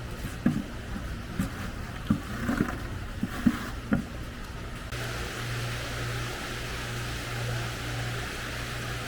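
Fishing boat's engine running with a steady low drone, with a few sharp knocks and clatter over it in the first half. About five seconds in the engine grows louder with a slow pulse and a steady hiss.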